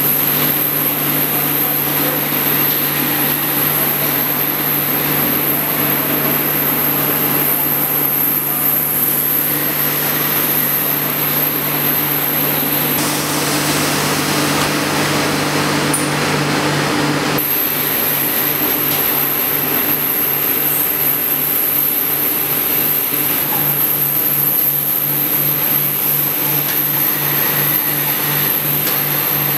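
Industrial machinery running with a steady low hum, a broad mechanical noise and a thin high whine, like electric pumps and motors on a washing line; in the second half the hum pulses about twice a second.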